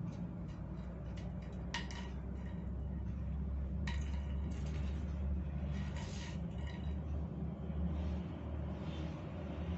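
Scattered light clicks and scrapes of a drinking straw batted about on a ceramic tile floor by a playing kitten, over a steady low hum.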